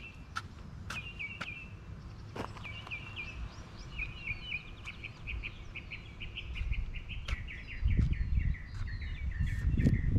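A small songbird singing: repeated short chirps that run together into a fast trill through the middle, over outdoor background noise with scattered clicks. A low rumble grows louder near the end.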